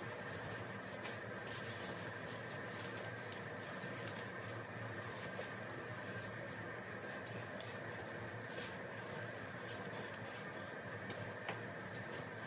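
Soft rustling and brushing of a plush costume being handled and pulled on, with many small scratchy handling noises over a faint steady hum.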